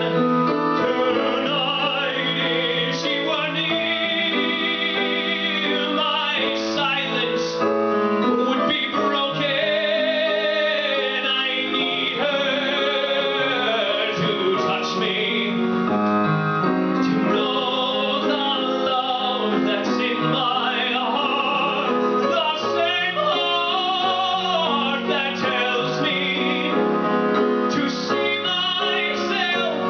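Male singer performing a slow ballad live with piano accompaniment, his long held notes wavering with vibrato.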